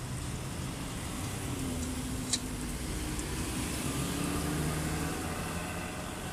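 Hot oil sizzling steadily as pieces of Chinese fried dough deep-fry in a wok, while a road vehicle passes, its engine hum rising and falling through the middle. One sharp click about two and a half seconds in.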